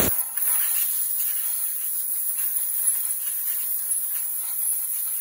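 Compressed-air blow gun blowing a loud, steady hiss over a freshly ground 1911 frame on a surface grinder's magnetic chuck, clearing coolant off the part to clean it for measuring.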